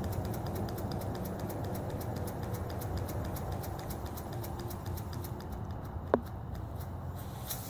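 PM Research bottle-style vertical model steam engine, double-acting, running on compressed air and throttled down near the lowest speed it will keep running at. It ticks and puffs in an even rhythm. A brief falling squeak comes about six seconds in.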